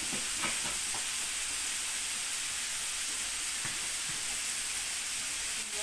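Pieces of chicken breast sizzling steadily as they fry in hot oil in a pan, with a few light knocks.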